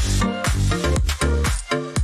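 Background electronic dance music with a heavy, chopped beat, starting abruptly.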